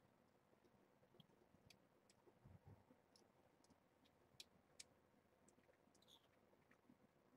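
Near silence with faint scattered clicks and a soft low thump about two and a half seconds in, from kittens scampering and playing on towels.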